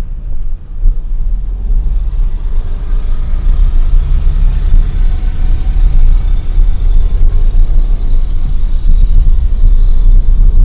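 A car driving in city traffic, heard from inside the cabin: steady low engine and road rumble, with a faint high whine from about two seconds in until near the end.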